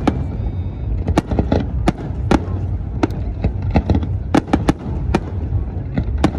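Aerial fireworks display: shells bursting in loud, irregular bangs, about two to three a second, over a steady low rumble.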